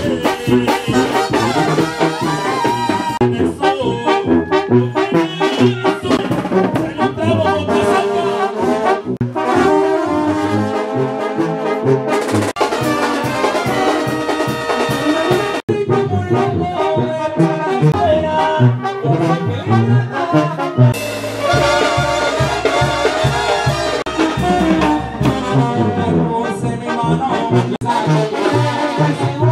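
Brass band music, with trumpets and trombones playing a tune over a rhythmic bass line.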